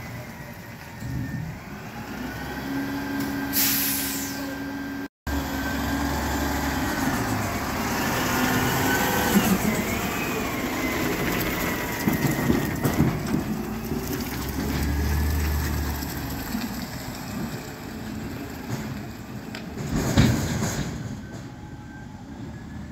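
Waste Management front-loader garbage truck engine and hydraulics running, with a whine that rises and falls in pitch as the lift works. A sharp air-brake hiss comes about three and a half seconds in and another about twenty seconds in.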